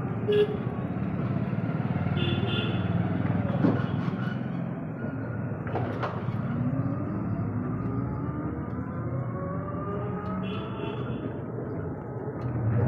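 Rickshaw heard from inside while it drives along a street: a steady low running rumble with slow rising whines as it gathers speed, and a few sharp knocks and rattles from the body.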